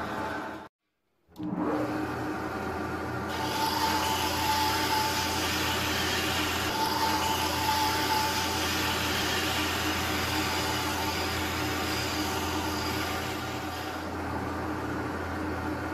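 Wood lathe running steadily, motor humming, while a chisel cuts a spinning wooden stick held between chuck and tailstock centre, adding a hiss from about three seconds in until near the end. The sound drops out briefly about a second in.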